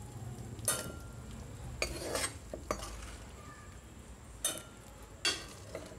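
About half a dozen light metal clinks and knocks against a steel mixer-grinder jar as fried tomato and green chilli pieces are put into it.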